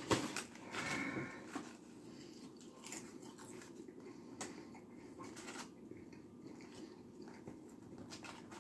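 Quiet eating sounds: a paper bag rustling and being set down at the start, then faint chewing and small clicks from handling fries in a paper carton, over a low steady room hum.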